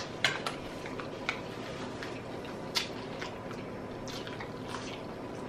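Close-up mouth sounds of eating curry chicken feet: chewing, wet lip smacks and finger sucking, heard as scattered short smacks and clicks over a steady low room hiss.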